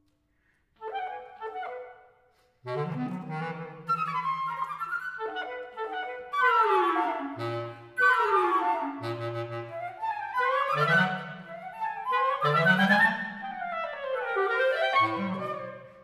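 Woodwind quartet of two flutes, clarinet and bass clarinet playing contemporary chamber music. After a brief pause and a few short notes, the full ensemble comes in about two and a half seconds in, with repeated falling runs in the upper voices over short held low bass clarinet notes.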